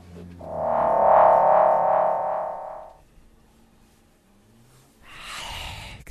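Music from the film score: one sustained chord swells up and fades away over about two and a half seconds. A short breathy rush of noise follows near the end.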